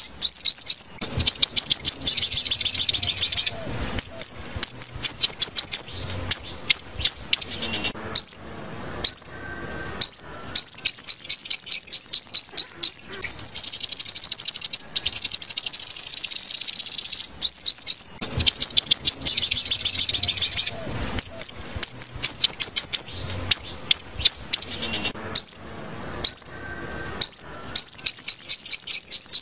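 Sunbird song: long runs of rapid, very high chittering trills made of fast down-slurred notes, broken by short pauses and a few single sweeping call notes. It is played as a repeating lure call for trapping.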